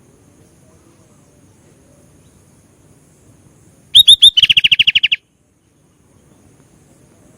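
Sooty-headed bulbul (kutilang) giving one short burst of song about four seconds in: three quick, loud, high notes, then a fast trill of about a dozen notes lasting under a second.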